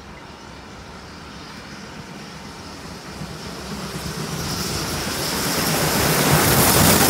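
Steam locomotive hauling a train approaching at speed, its rumble growing steadily louder as it nears.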